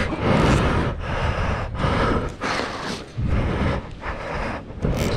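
Heavy, rapid breathing close to the microphone, about seven breaths in quick succession, over rustling and rumbling from jacket fabric rubbing across the microphone during a hurried ladder descent.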